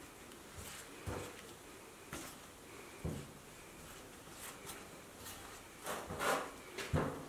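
Hands pressing and turning chicken wings in dry flour in a ceramic dish: several soft thuds with rustling of flour, the loudest near the end.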